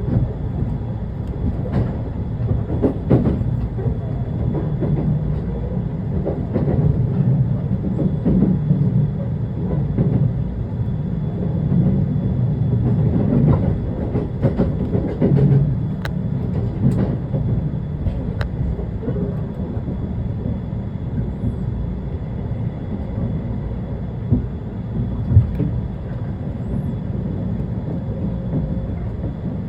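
Shonan-Shinjuku Line rapid electric commuter train running along the line: a steady low rumble, with scattered sharp clacks and knocks from the wheels on the track.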